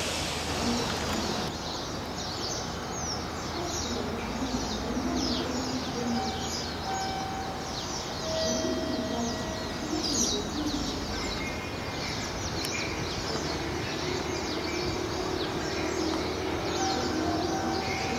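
Many small birds chirping and twittering continuously, short falling chirps overlapping one another, over a steady low rumble.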